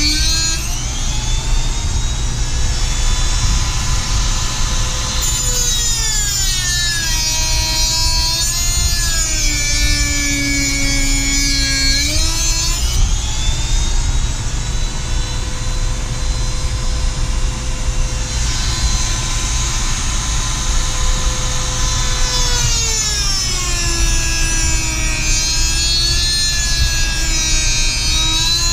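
Pioneer 650 two-stroke chainsaw, fitted with a 20-inch Oregon bar and chain, running at high revs and cutting. Its engine speed sags twice under load, from about 6 to 12 seconds in and again near the end, and picks back up in between.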